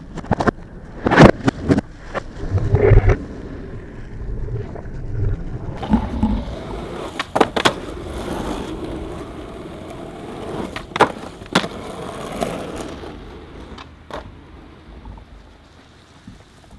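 Skateboard wheels rolling on asphalt, broken by several sharp clacks of the board hitting the pavement, loudest in the first few seconds; the rolling fades down near the end.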